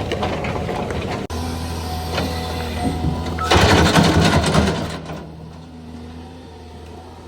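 Heavy vehicle and machinery engines running steadily, with an abrupt break about a second in and a louder stretch in the middle that then fades down.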